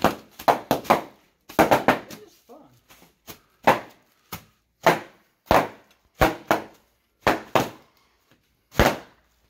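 Plastic air-pillow packing cushions bursting under stamping feet: over a dozen sharp, loud pops in an irregular series, some in quick pairs, like gunshots.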